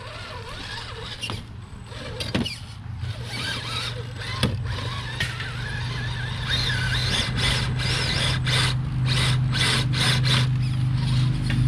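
A steady low motor hum at one unchanging pitch, growing louder from about four seconds in.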